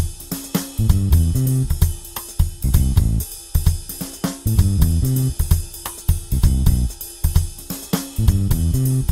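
Background music: a band with drum kit and guitar playing a steady beat over a moving bass line.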